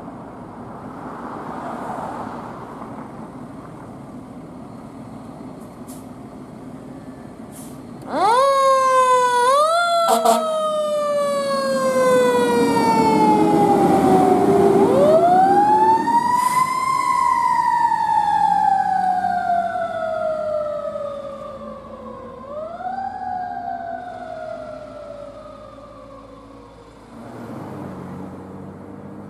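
Fire truck siren sounding as the rig passes: after a few seconds of traffic noise it rises in three quick whoops, then winds up in one long rise and falls away slowly, with one more quick rise and slow fall before it fades.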